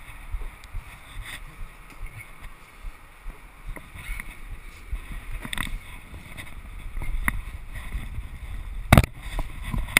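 Wind rumbling on the microphone, with scattered clicks and knocks and one loud knock about nine seconds in.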